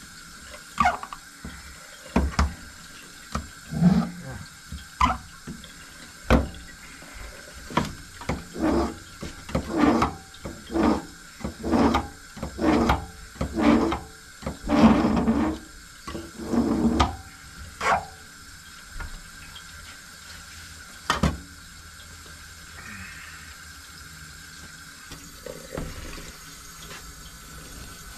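Kitchen knife working in short repeated scraping strokes, about one to two a second, that stop about two-thirds of the way through, with one last stroke a few seconds later.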